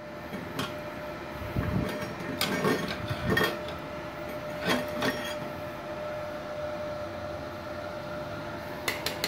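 Welding gear being handled: scattered knocks and clatters as the electrode holder, cables and earth clamp are moved, over the steady hum of the switched-on inverter welding machine.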